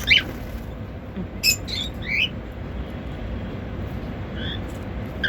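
Pet cockatiels chirping: short, sharp sliding calls, one at the start, a quick cluster of three about a second and a half in, and fainter ones near the end.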